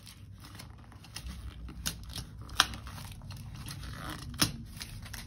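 Hands handling paper and packaging, with rustling and crinkling and three sharp clicks.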